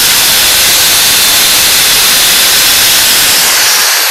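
Cooling-fan exhaust air from a running Black & Decker KR704RE hammer drill (710 watts) blowing across the microphone: a loud, steady rush of noise that hides the motor's own tone.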